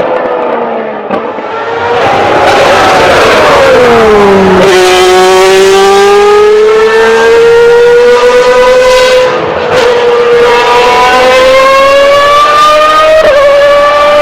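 Ferrari 412 T2 Formula One car's 3.0-litre V12 engine, very loud. It falls in pitch for about two seconds as the car slows, then the pitch climbs steadily as it accelerates again, with a brief change about ten seconds in and another near the end.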